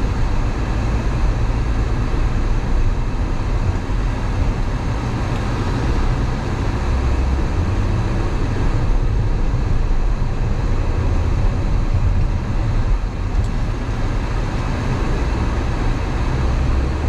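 Steady road noise inside a moving car: a low, even rumble of engine and tyres.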